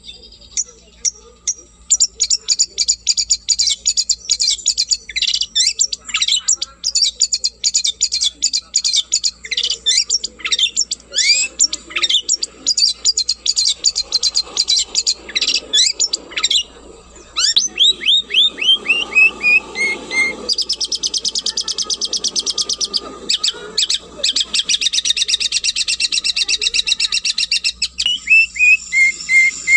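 Long-tailed shrike (cendet) singing continuously in fast, high, chattering phrases. A run of quick falling notes comes a little past halfway, and another near the end.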